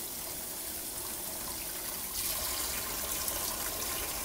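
Tap water running onto cooked spaghetti in an enamel colander, rinsing it, and draining through the holes into a stainless steel sink. About two seconds in the splashing gets louder and more hissing.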